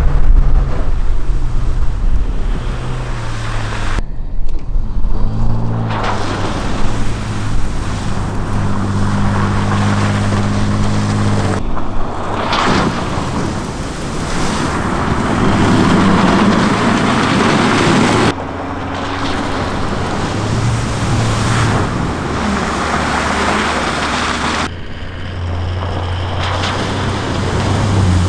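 Off-road 4x4 vehicles driving on dirt tracks: engines running under a broad rush of tyre and wind noise, with a brief rise and fall in engine pitch about five seconds in. The sound changes abruptly several times, as if cut between separate driving clips.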